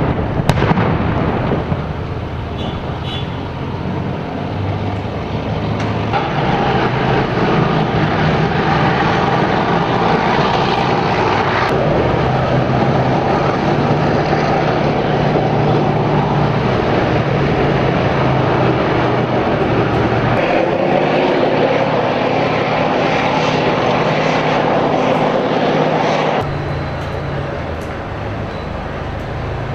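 Armoured vehicle engine running close by, a loud steady drone that swells about six seconds in and falls away a few seconds before the end. A sharp bang comes right at the start.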